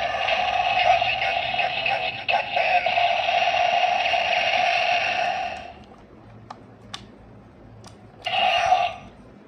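DX Grease Blizzard Knuckle toy's electronic sound effect playing through its small built-in speaker for about six seconds. A few clicks follow, then a short burst of the same sound near the end. It plays the same sound whatever bottle is inserted, because it has only a button inside and no bottle reader.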